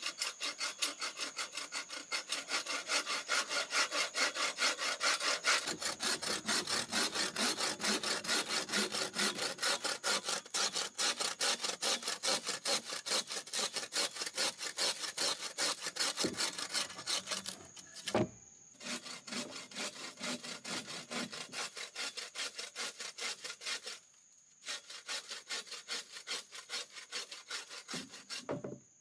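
Hand saw cutting through wood in fast, even back-and-forth strokes, stopping briefly twice.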